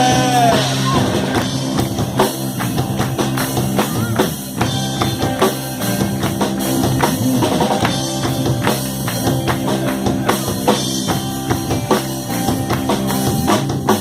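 Live rock band playing an instrumental break: a drum kit with a steady beat and frequent hits to the fore, over electric bass and guitar, with no singing.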